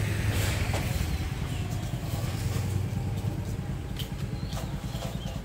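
Steady low hum of street traffic, with a motor vehicle engine running, and a few faint clicks.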